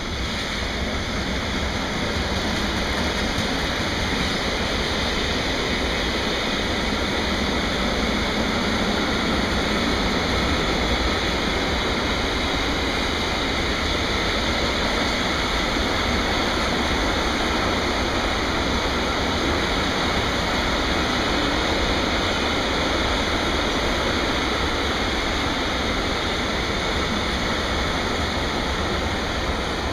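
Steady rolling rumble and hiss of a long freight train of bogie hopper wagons passing close by, with no single clanks standing out.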